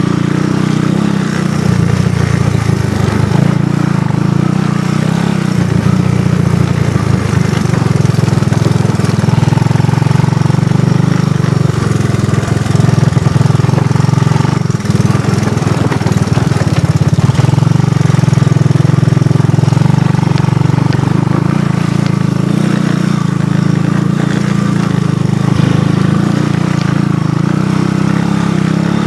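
ATV engine running steadily while riding a trail, its pitch shifting a little now and then as the throttle changes.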